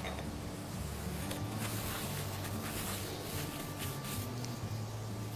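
Faint soft rustling and scraping of hands working raw chicken pieces in a tray of flour, rubbing the coating on. A low steady hum lies under it.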